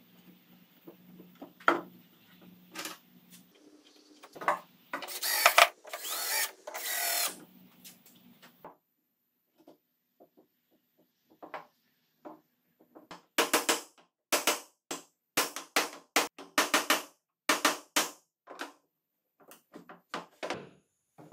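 A cordless drill runs in a short burst of a couple of seconds, then a run of sharp knocks, about two a second, as wooden table-leg parts are knocked and fitted together.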